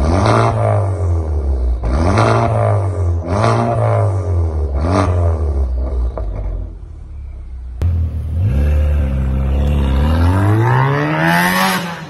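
Honda Civic Type R FK8's turbocharged 2.0-litre four-cylinder, breathing through a de-catted Armytrix valvetronic exhaust with the valves open. It is blipped four times, each rev rising and falling quickly, then settles to idle. Near the end it pulls away in one hard acceleration, its pitch climbing for about three seconds before it lets off.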